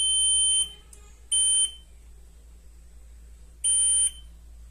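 Digital multimeter's continuity buzzer giving three high-pitched beeps, the first the longest, as the probes touch the legs of the main power-supply transistor (C5296). The beeps signal a short across the transistor's pins, where none should be; the technician thinks another component on the board may be at fault.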